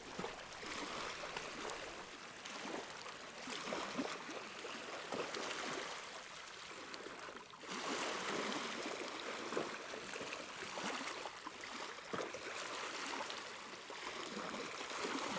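Water lapping and gurgling: a steady wash with many small irregular splashes.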